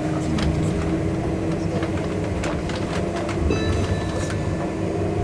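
Enoden electric train running along the track, heard from inside the front car: a steady rumble with irregular clicks from the wheels over the rails. About three and a half seconds in, a high, steady ringing tone joins and holds for over a second.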